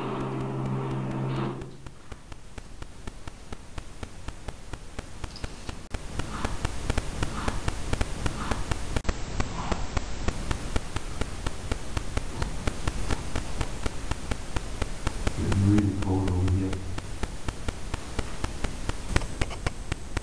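Recording of a Rolls-Royce Merlin aero engine played back through a small speaker. A low droning note drops away about a second and a half in, leaving a steady, crackling rush with a hum, and the drone returns briefly near the end.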